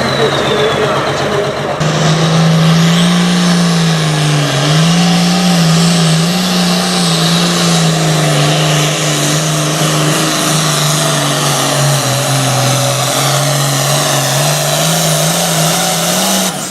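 Super Farm class pulling tractor's turbocharged diesel engine running hard at high revs under load, its pitch wavering slightly and getting louder about two seconds in.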